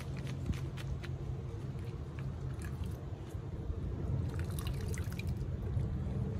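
Water dripping and sloshing as a grey looped sluice-box mat is rinsed in a plastic gold pan of soapy water, washing the concentrates out of it at cleanup. Scattered drips and small splashes, busiest about four to five seconds in, over a steady low rumble.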